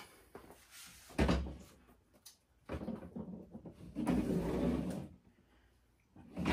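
Cylinder head of a Yamaha YZ450F engine being muscled off its cylinder by hand: a knock about a second in, then metal parts scraping and sliding against each other.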